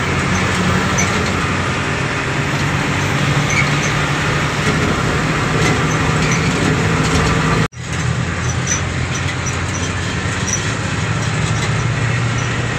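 Truck engine and road noise heard inside the cab while driving, a steady hum. The sound cuts out for an instant about three-quarters of the way through, then picks up again.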